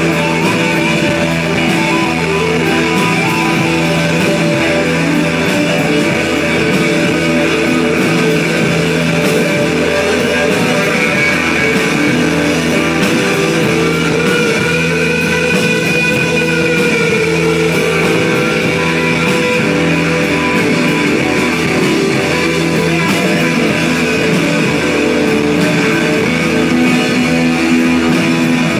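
Live rock band playing loud: electric guitar held over drums in a steady, droning texture. About halfway through, a held note rises and falls back.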